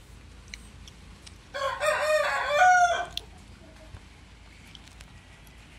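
A rooster crows once, a single call about a second and a half long that rises in pitch toward its end, starting about a second and a half in.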